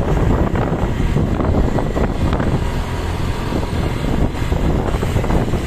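Road and vehicle noise with wind buffeting the microphone, a steady rumbling haze with no horn sounding.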